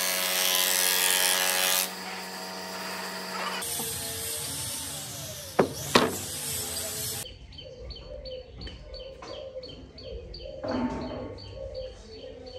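Combination jointer-planer woodworking machine running with a steady motor hum, dropping off about two seconds in. Later, two sharp wooden knocks half a second apart as planed boards are set on a wooden bench, followed by a faint high chirping that repeats about three times a second.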